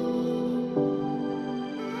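Soft background music: sustained synth chords that change about three quarters of a second in.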